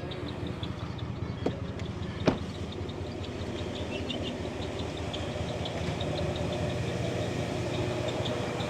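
A steady low machine hum, like an engine idling, with a faint rapid ticking over it and two sharp clicks in the first few seconds, the second one louder.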